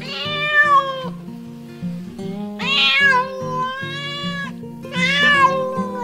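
A cat meowing three times, the middle meow the longest, over background music.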